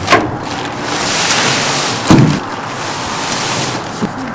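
Nylon tent fabric rustling and crinkling as a Coleman Swagger Instant Up 2P tent is pulled open and spread out by hand. There is a sharp knock at the start and a heavy thump about two seconds in.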